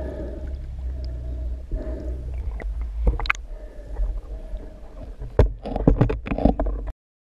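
Underwater sound picked up through a GoPro's waterproof housing: a steady low rumble of moving water with a faint hum. Scattered clicks and knocks come in after a few seconds and grow into a cluster of louder knocks near the end, before the sound cuts off suddenly.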